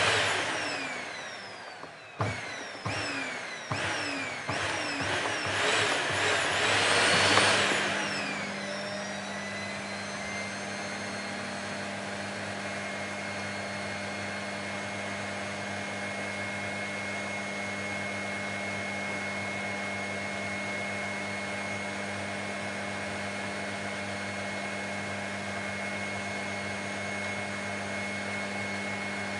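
Vacuum cleaner motor starting abruptly, its pitch sweeping several times over the first eight seconds before it settles into a steady running drone with a constant high whine.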